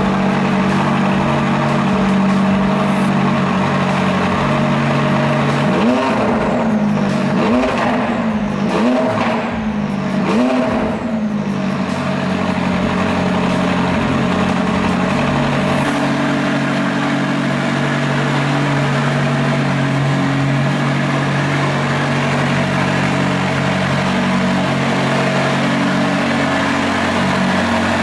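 McLaren 570's twin-turbocharged V8 idling just after a cold start, with several quick throttle blips about six to eleven seconds in before settling back to a steady idle while it warms up.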